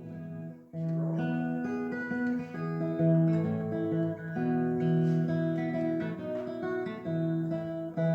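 Acoustic guitar strumming chords as the instrumental introduction to a hymn, starting about a second in with a new strum every half-second or so.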